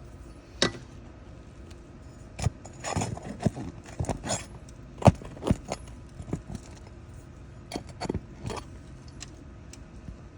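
Irregular sharp clinks, taps and scrapes, a dozen or so strikes, as nails are pulled and brittle asphalt shingles are worked loose with a metal hand tool.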